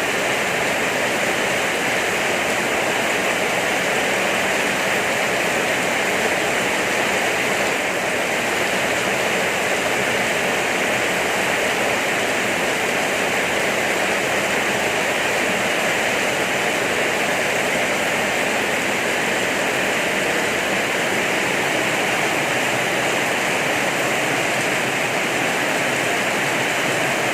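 Very heavy rain pouring down in a steady, unbroken hiss.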